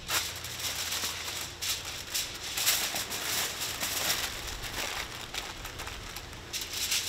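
Aluminium foil crinkling and rustling with clicks and crackles as a barbecue sauce bottle is handled and poured over a smoked chicken.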